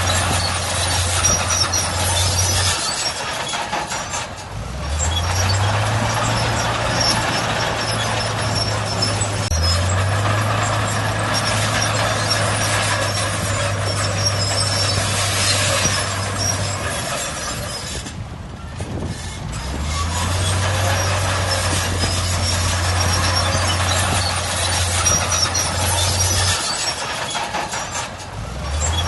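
Heavy earthmoving machine's diesel engine working in cycles: its low note drops away three times and rises again as it takes up load, under a constant loud rattling noise.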